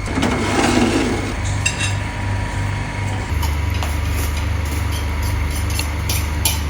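Kitchen utensils clicking and clinking against dishes or a pan, a few sharp taps with more of them near the end, over a steady low hum.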